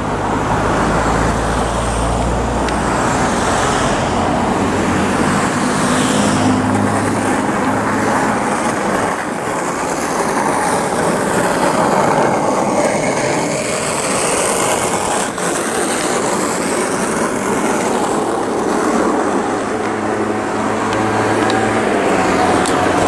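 Southern Class 377 Electrostar electric multiple unit running on the line, a steady loud rumble of wheels on rail. Faint high whines rise and fall through the middle.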